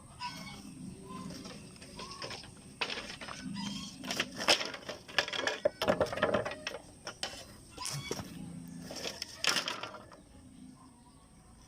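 A run of irregular knocks and clatters, starting about three seconds in, thickest in the middle and dying away near the end.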